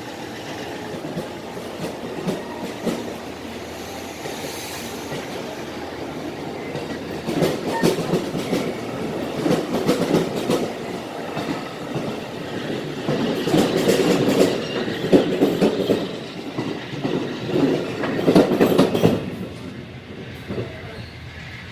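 Train passing, its wheels clicking over the rail joints. It grows louder over the first half, is loudest for several seconds, then drops away near the end.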